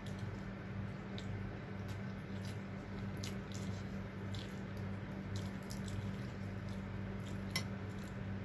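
Close-up eating sounds: soft chewing and wet lip and mouth smacks, scattered irregularly, with one sharper click near the end, over a steady low hum.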